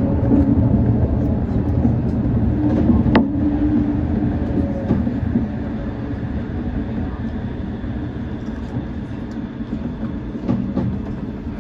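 Shonan Monorail 5600-series suspended, rubber-tyred monorail car running into a station and slowing to a stop, with a low rumble and hum from its running gear that fade as it slows. One sharp click about three seconds in.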